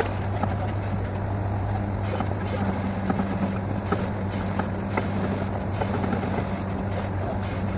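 Borewell drilling rig's diesel engine running steadily at a constant pitch, with scattered short clicks and knocks from the working rig.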